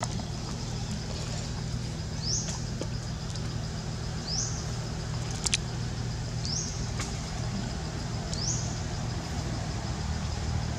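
A steady low engine drone runs throughout, while a bird repeats a short rising call about every two seconds.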